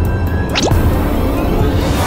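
Background music with cartoon sound effects: a quick rising glide about half a second in, then a whoosh that swells up toward the end.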